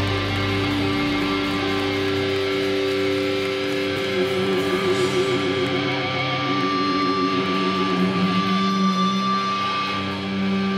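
Electric guitars held and ringing through the amplifiers at a live hardcore show, sustained notes with a wavering vibrato in the middle and a new low note coming in about four seconds in.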